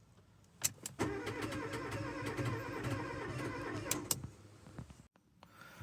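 A click, then the 2008 Fiat 500 1.4's engine being cranked on the starter motor for about three seconds, with a rhythmic pulsing. It never catches and stops cranking: the car's crank-but-no-start fault.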